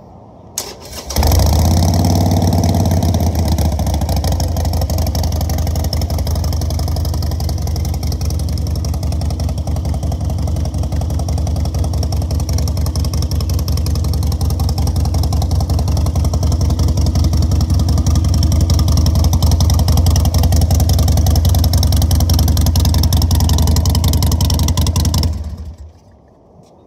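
2016 Harley-Davidson Sportster Forty-Eight's 1200 cc V-twin with Vance & Hines exhaust pipes, cranked by the starter and catching about a second in, then idling steadily. It is switched off about a second before the end.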